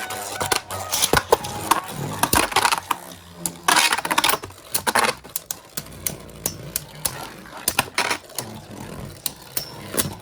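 Spinning Beyblade Burst tops clashing in a plastic stadium: sharp, irregular clicks and knocks throughout, with two longer scraping rasps about four and five seconds in.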